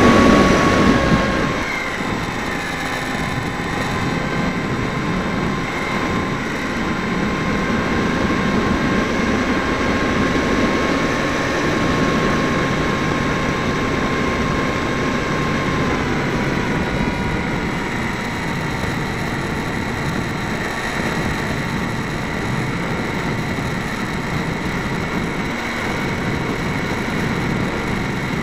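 Mini Skywalker RC plane's electric motor and propeller whining in flight, heard from on board with wind rushing over the microphone. The motor is louder in the first second or so and then throttles back. Its steady whine drops a little in pitch about halfway through.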